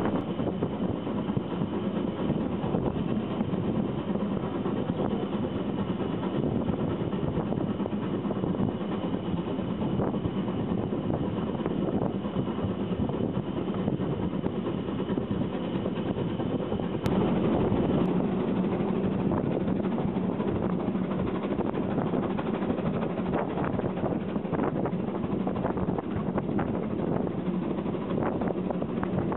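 Narrow-gauge steam train running, heard from an open coach window: a steady rumble with the clatter of the coaches' wheels on the rails, and wind buffeting the microphone.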